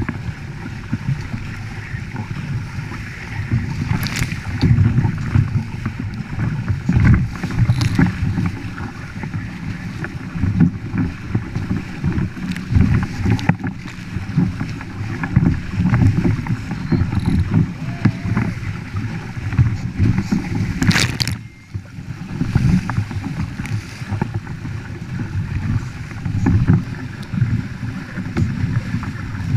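Wind buffeting the microphone of a deck-mounted action camera and water rushing and hissing along the hull of a Nacra 6.0 catamaran sailing at speed, with a few sharp splashes of spray hitting the camera.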